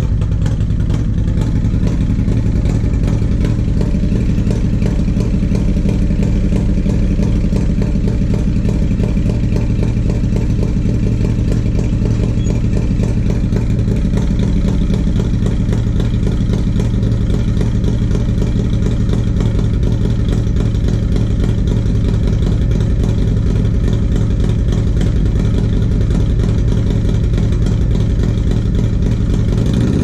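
1994 Harley-Davidson Road King's 80-cubic-inch Evolution V-twin, breathing through a CV40 carburettor and a Screamin' Eagle 2-into-1 exhaust, running steadily and loudly. This is the bike's sound with its carburettor fault, which the owner says makes it stumble and miss on light throttle.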